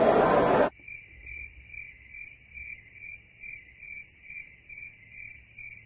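Cafeteria noise cuts off abruptly less than a second in and gives way to an edited-in cricket-chirping sound effect: high, even chirps about three a second. This is the comic 'awkward silence' gag.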